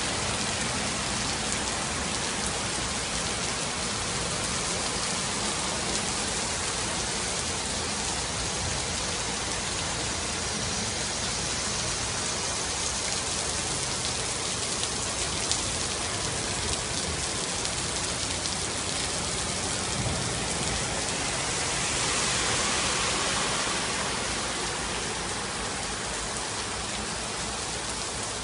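Heavy rain pouring steadily onto a flooded street, a dense, even hiss of drops on pavement and standing water. It swells a little louder about 22 seconds in, then settles back.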